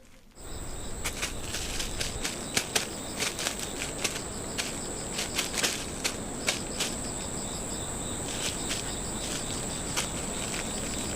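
Steady high-pitched insect trill, cricket-like, over a hissy background, with irregular sharp ticks and rustles scattered throughout.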